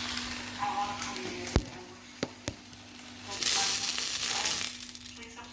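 Fish frying in hot oil in a pan, sizzling, with three sharp knocks near the middle and a louder burst of sizzling about three and a half seconds in. A steady low hum runs underneath.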